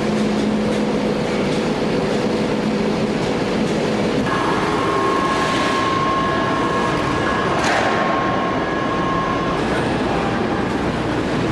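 Loud, steady drone of heavy forge-shop machinery. A steady whine comes in about four seconds in, and there are short hissing bursts near the end.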